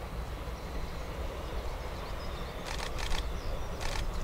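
Distant narrow-gauge steam locomotive working a train: a steady low rumble, with breathy exhaust chuffs about once a second in the second half. Small birds chirp now and then.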